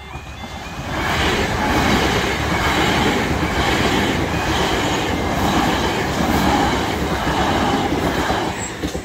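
Two coupled Class 377 Electrostar electric multiple units passing at speed: a loud rush of wheels on rail that swells about a second in, with a regular clatter as the wheels go by, and falls away near the end.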